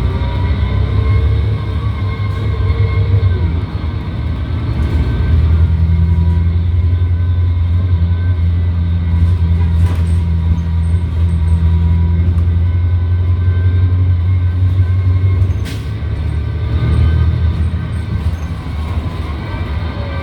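Transit bus engine running under load, heard from inside the cabin: a deep drone that swells about five seconds in and eases off about three-quarters of the way through, with a faint wavering whine above it.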